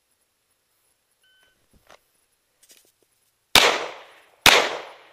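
A shot timer's short start beep, a faint rustle of the draw, then two handgun shots about a second apart, each ringing off afterwards: a timed two-shot drill fired in about 3.2 seconds from the beep.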